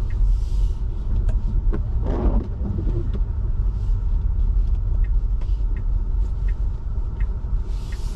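Steady low rumble of an electric Tesla Model 3 driving on a snow-covered road: tyre and road noise with no engine note, and faint small ticks throughout.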